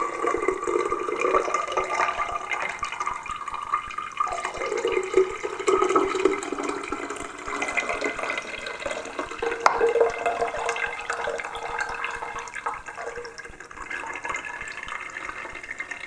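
Lemonade poured from a plastic measuring jug through a cloth-covered strainer, trickling and splashing steadily into a glass jug.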